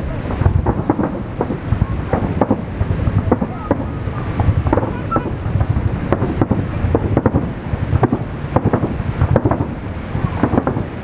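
Fireworks display over the bay: a rapid, unbroken barrage of bursts, several a second, over a continuous low rumble.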